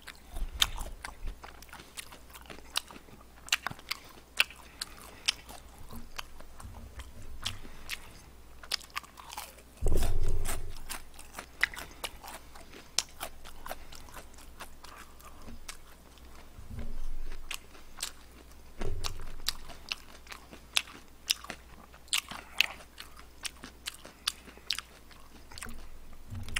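Close-miked chewing and crunching of crispy fried chicken, with many sharp crisp crunches throughout and a few louder low bumps about ten, seventeen and nineteen seconds in.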